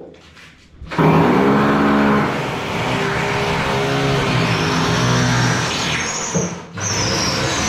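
Power drill running under load, driving a screw into a wooden wall cupboard. It starts abruptly about a second in, stops briefly near the end and starts again.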